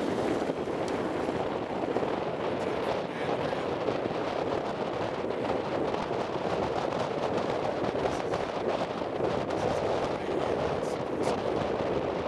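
Steady rush of wind and road noise from a car driving at speed, with no clear engine tone.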